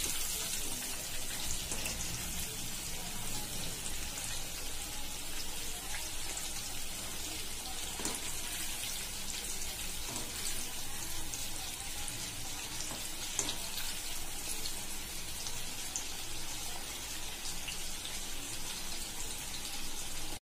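Chicken pieces deep-frying in hot oil in a kadai: a steady sizzle full of small crackles and pops.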